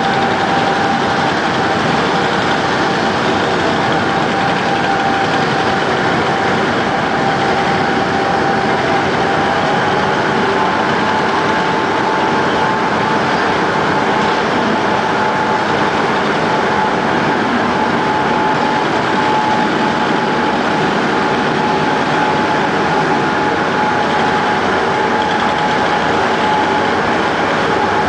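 Road cold milling machine running steadily as its cutting drum grinds off the asphalt surface and its conveyor loads the cuttings into a dump truck. A steady high whine runs over the noise and steps up slightly in pitch about ten seconds in.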